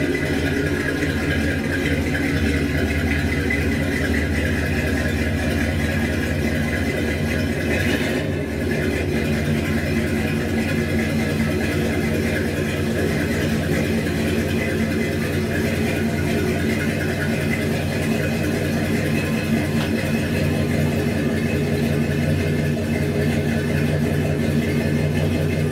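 1973 Buick Electra 225 Limited's 455 V8 idling steadily while the car is eased forward at low speed.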